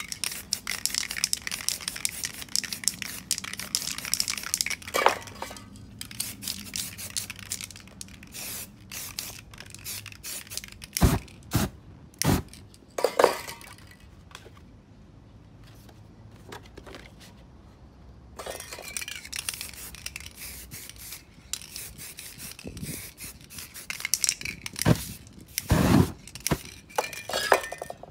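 Aerosol spray paint cans hissing in bursts, with sharp knocks and scrapes from cans and paper being handled. The hissing stops for a few seconds in the middle, then starts again.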